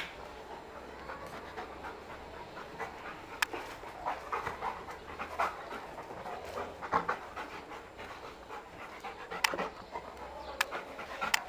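A dog panting in quick, rhythmic breaths at close range, with a few sharp clicks among them.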